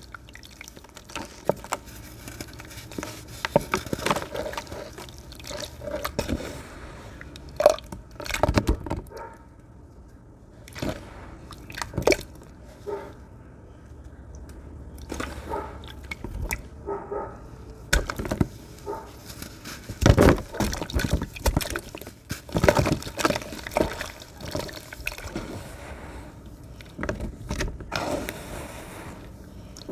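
Crunchy sand crumbled by hand and falling into water: irregular gritty crackles and crumbles with splashing and dripping, coming in clusters with quieter gaps between.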